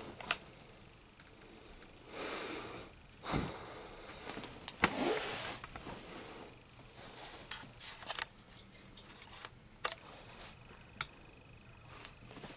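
Faint handling noise: scattered light clicks and taps, a dull thump about three seconds in, and two short rustles, like crumpled paper towel and foil packing being moved.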